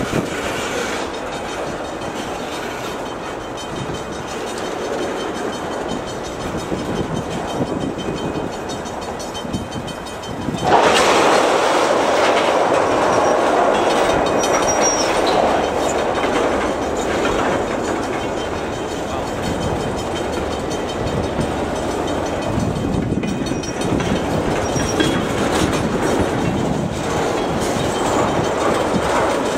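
Freight train of tank cars rolling past at close range, steel wheels running on the rails in a steady rumble. It turns abruptly louder about ten seconds in and stays that way.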